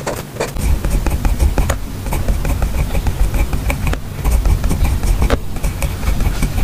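Hands unpacking and handling packaging close to the microphone: rustling with many small clicks and taps, over a low rumble of handling.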